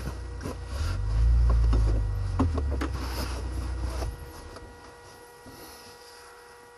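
Low rumbling and rubbing noise with several sharp clicks, dying down about four seconds in to a faint steady hum.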